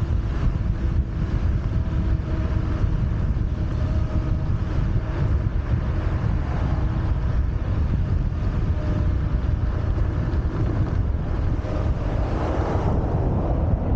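Wind buffeting the microphone of a camera on a fast-moving electric scooter: a steady low rumble with faint steady hum tones underneath. About a second before the end, the hiss thins and the sound turns more muffled.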